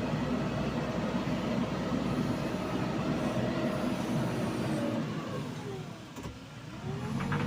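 JCB 3DX backhoe loader's diesel engine running steadily under work. About six seconds in, the engine note drops in pitch and loudness, then climbs back as the revs recover.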